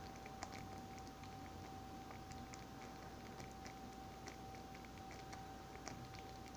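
Creamy soup-and-sour-cream sauce simmering over chicken in a skillet: faint, irregular little pops and crackles, with a thin steady hum underneath.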